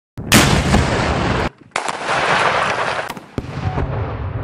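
Tannerite explosions in a quick-cut sequence: a sharp blast about a quarter second in, followed by a long rumble, then abrupt cuts to further blasts and rumbling.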